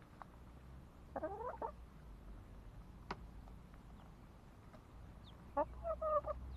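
Chickens clucking in two short runs, about a second in and again near the end, with a single sharp click in between.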